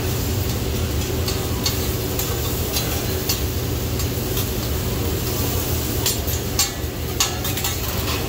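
Metal teppanyaki spatulas clicking and scraping on a flat steel griddle as food sizzles, with a cluster of sharper clinks near the end, over a steady low hum.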